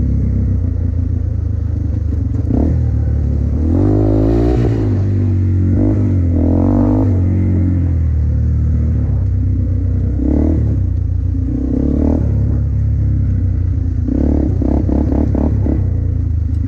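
Off-road vehicle engine running with a steady low drone, revved in short bursts several times, with a quick run of revs near the end.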